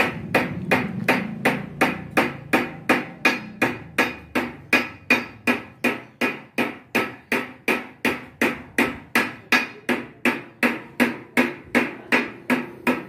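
Hand hammering of a sheet-metal mosque dome panel, shaped by hand over a metal stake: a steady rhythm of about three blows a second, each with a brief metallic ring.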